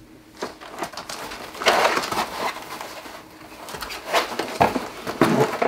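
Rummaging in a cardboard box: packing material rustling and crinkling, with a few sharp knocks as faucet parts are handled and lifted out.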